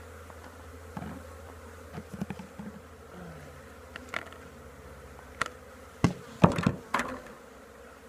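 Honeybees buzzing in a steady hum around an opened hive, many of them in the air at once. Scattered sharp taps and knocks cut in, the loudest cluster about six to seven seconds in.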